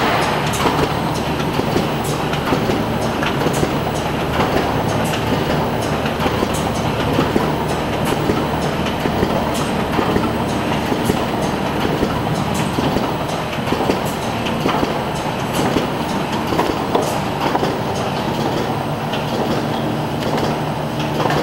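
Adco 15D105 horizontal cartoner running: a steady mechanical clatter of many quick clicks over a constant hum as it moves cartons along.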